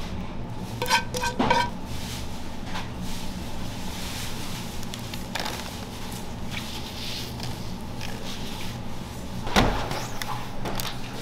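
Kitchen clatter: a few sharp clinks of dishware that ring briefly, then a louder knock near the end, over a steady low hum.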